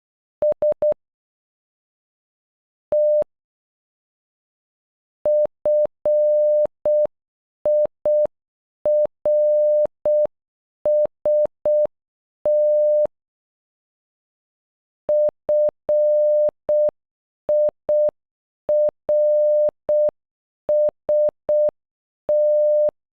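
Morse code played as a steady, single-pitch electronic beep tone, keyed in short dots and long dashes. After an S (three dots) and a T (one dash), the word FIRST (..-. .. .-. ... -) is sent twice at a slow, half-speed pace, with clear gaps between letters.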